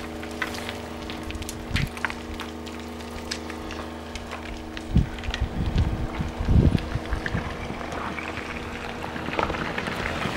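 Rockfall: loose rock and debris tumbling down a scree slope, with scattered sharp clacks of stones striking each other and a few heavier thuds about five and six and a half seconds in.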